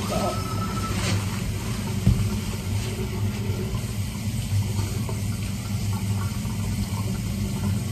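Steady low rumble of a tiled school restroom, with a few light clicks and rustles of paper towels as sneakers are wiped clean.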